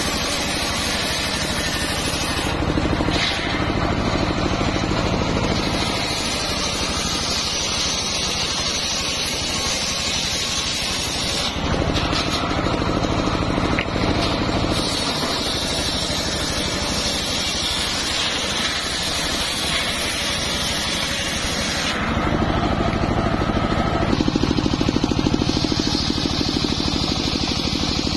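Large blade of a homemade engine-driven circular saw bench spinning and sawing lengthwise through a log, over the steady drone of the driving engine. The sound changes abruptly a few times.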